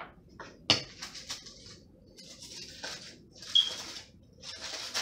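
Aluminium foil crinkling in repeated rustling bursts as it is peeled off a plate of food, with a couple of sharp clinks of dishes, the loudest about a second in and again midway.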